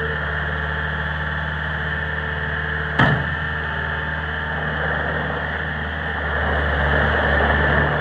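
2005 Bobcat S300 skid steer's Kubota diesel engine running steadily, with a single sharp clank about three seconds in as the loader bucket comes down. Near the end the engine grows louder as the machine drives off over gravel.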